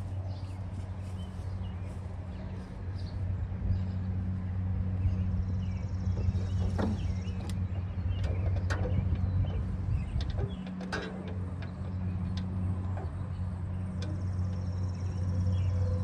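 Light clicks and knocks of parts being handled while a lawnmower deck belt is fitted back on, scattered irregularly and most frequent in the middle, over a steady low hum.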